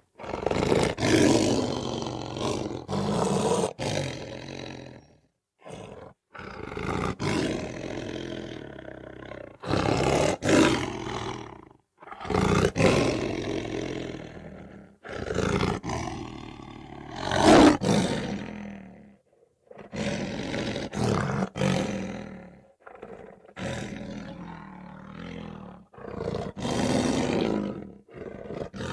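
Lions roaring in a string of separate calls, each one to four seconds long, with short abrupt gaps between them; the loudest comes a little past the middle.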